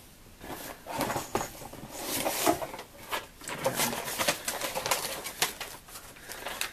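A cardboard box being opened by hand, its flaps pulled back and the paper packing inside rustled and crinkled: an irregular run of rustles and crackles.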